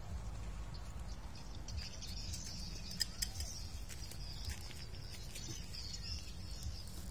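Open-air ambience: a steady low rumble with small high chirps and ticks that set in about two seconds in, two sharper clicks about three seconds in.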